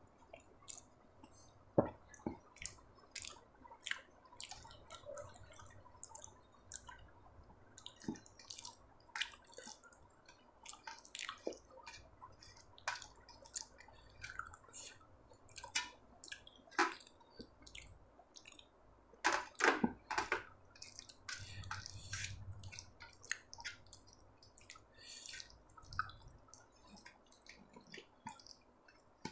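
Close-miked eating sounds: many short, wet clicks and smacks of a mouth chewing soft sabudana khichdi, with fingers squishing through the sticky sago pearls on a steel plate. A denser run of loud clicks comes about two-thirds of the way through.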